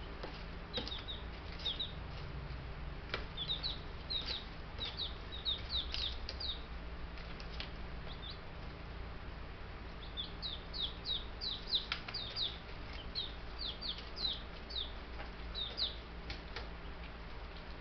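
Baby Buff Brahma chicks peeping: short, high cheeps coming in quick bunches, over a steady low hum.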